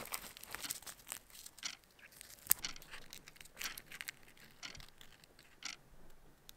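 Crisp fried spring roll pastry crackling as it is broken apart and handled, with small clicks and one sharper tick about two and a half seconds in, as the piece is dipped into a tub of sauce.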